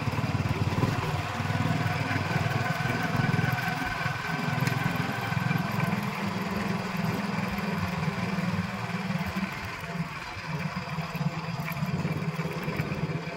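Motorcycle engine running steadily as the bike rides along, heard from the rider's seat.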